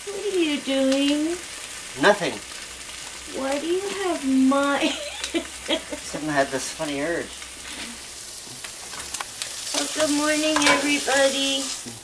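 Food sizzling in a frying pan, a steady hiss, with several wordless pitched sounds that glide up and down over it.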